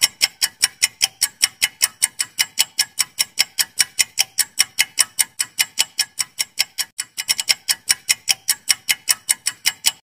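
Quiz countdown-timer sound effect: rapid clock-like ticking, about five ticks a second, briefly bunched closer together a little past the middle, then stopping suddenly as the timer runs out.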